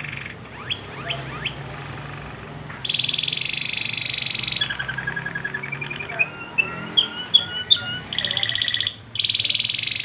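Waterslager canary singing: a few soft rising sweeps, then loud, very fast trilled rolls. A lower rolling trill, short rising whistled notes and two more fast rolls follow.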